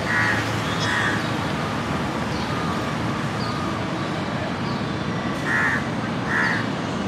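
A crow cawing in pairs of calls, twice at the start and twice near the end, over steady outdoor background noise.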